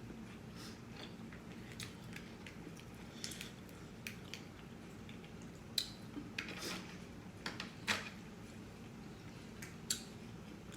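Close-miked chewing and wet mouth smacks of a person eating sauce-drenched lobster tail, with scattered short clicks; the sharpest smacks come about six and eight seconds in.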